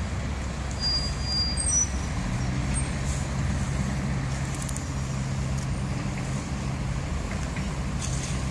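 Heavy road vehicles in slow street traffic, a bus and a dump truck, with their engines running as a steady low hum. The engine hum steadies from about two seconds in and fades back into the general rumble near the end.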